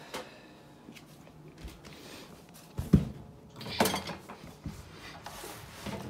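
Clunks and knocks from a new microwave oven being handled, with some rustling: a sharp knock at the start, a heavy thump about three seconds in that is the loudest, then lighter knocks.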